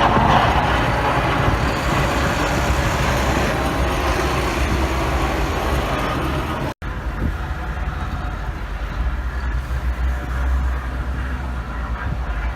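Steady outdoor roar of wind and city traffic in a snowstorm, with heavy wind rumble on the microphone. The sound drops out for an instant about two-thirds of the way through, at a cut.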